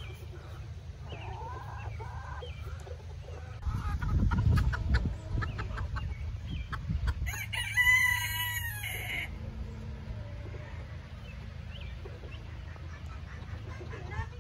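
Silkie chickens clucking quietly, then a rooster crows once, about two seconds long, some seven seconds in. A low rumble sounds briefly about four seconds in.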